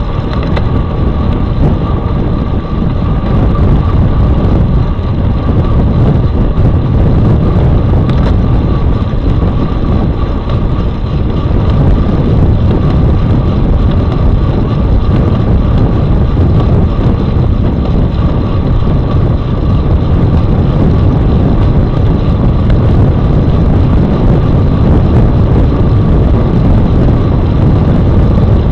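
Wind rushing over the microphone of a rear-facing bike camera, with road rumble from riding on a road bike. The noise is loud and steady, with a thin steady whine underneath.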